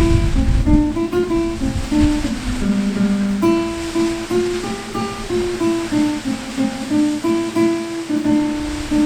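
Acoustic guitar music, a slow melody of single plucked notes, over a steady rush of falling water.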